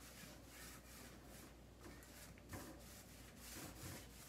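Small paint roller rolling wet paint over a wooden cabinet panel: a run of faint, soft swishing strokes.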